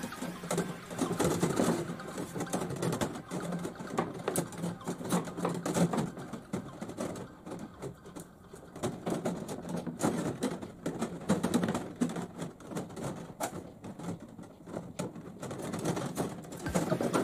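Copper tubing of a coiled evaporator clicking and rattling as it is handled and bent by hand with a bending tool: irregular light metallic clicks over a low steady hum.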